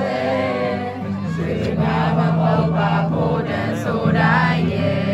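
A crowd of voices singing a song together in chorus, over a steady instrumental accompaniment.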